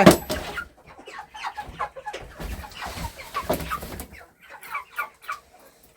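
Grown broiler chickens clucking, with many short, irregular calls, just after a sharp knock at the very start.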